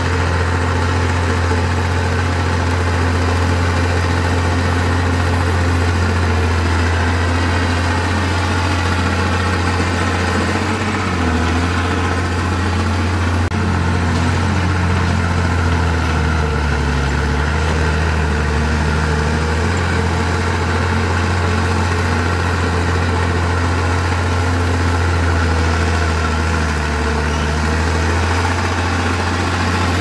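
Heavy diesel engine of earthmoving machinery running steadily, its pitch wavering up and down a little around the middle.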